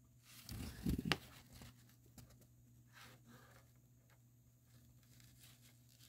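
A folded paper instruction manual being handled: a short burst of paper rustling and crinkling about half a second in, ending in a sharp crisp snap of the sheet, then a few faint rustles.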